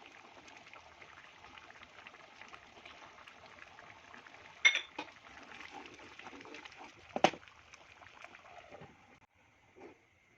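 Kitchen utensils at work while cooking dal: a faint steady hiss with two sharp metal clinks, the second a few seconds after the first and the louder.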